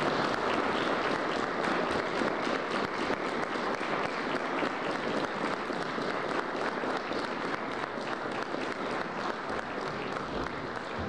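Audience applauding: dense clapping of many hands that holds steady and then eases off gradually toward the end.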